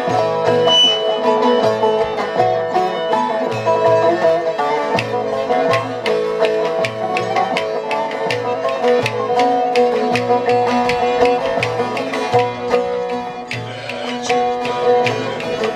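Ensemble of bağlamas (Turkish long-necked saz lutes) of several sizes plucking a Turkish folk-song (türkü) melody together in unison, to a steady rhythmic beat.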